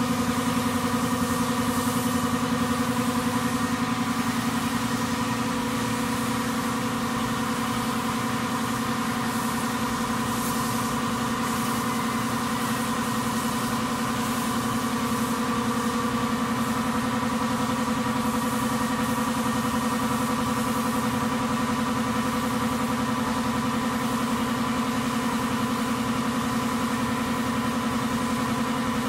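Steady machine hum with the hiss of air from a gravity-feed paint spray gun spraying a car's body panels; the hiss swells and fades in spells as the trigger is worked.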